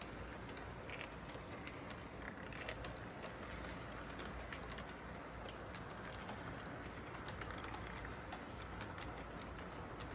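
Electric model train running along a tabletop layout track: a steady running noise with scattered light clicks as the cars' wheels roll over the rail joints.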